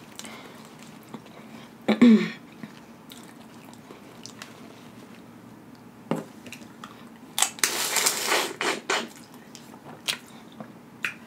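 Close-up eating sounds of boiled crawfish: soft chewing and scattered small clicks and cracks of shell, with a longer noisy stretch of about a second and a half beginning about seven and a half seconds in. A short voiced hum comes about two seconds in.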